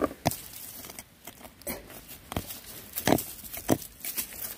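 Digging into leaf-littered forest soil by hand to unearth a deodeok root: a string of irregular scrapes and knocks, roughly one every half second to a second.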